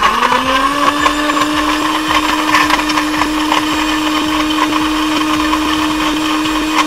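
Electric blender motor spinning up to speed in the first second, then running steadily as it blends a thick milkshake of milk, chocolate, dates and raisins.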